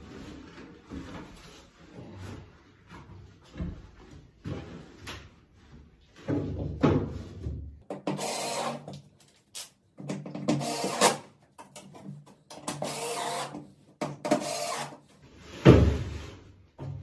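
Cordless drill-driver driving screws through thin plywood panels into wooden battens: about six whirring bursts of a second or so each in the second half. Before them come lighter knocks and clicks of the wood and the tool being handled.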